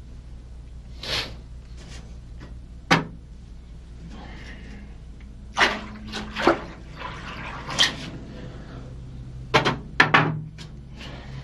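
Water poured from a clay jar into an earthenware basin, then splashing as someone washes their face in it. A few short knocks and splashes come scattered through, the busiest near the end, over a steady low hum.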